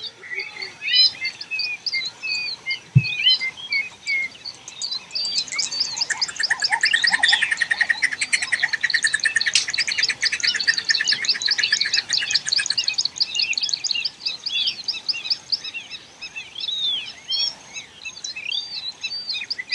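Morning chorus of many wild birds chirping and whistling, with a fast, dense repeated trill from about five to thirteen seconds in. A single low thump comes about three seconds in.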